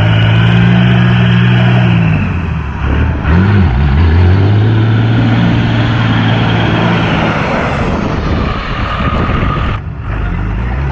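A 12-valve 5.9 Cummins inline-six turbo diesel pulling a pickup along under way, with a steady rushing road noise. The engine note dips about two seconds in and picks up again about a second later, then eases off near the end. A faint high turbo whistle rises and then falls away.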